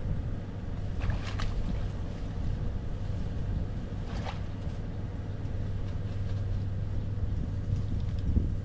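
A steady low drone, with a few brief rustles of cattail and reed stalks being pushed aside by someone wading through them.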